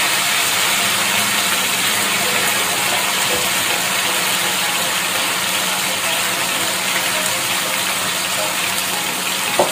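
Batter-coated chicken drumsticks sizzling steadily as they shallow-fry in oil in a grill pan, over a steady low hum, with a short tap near the end.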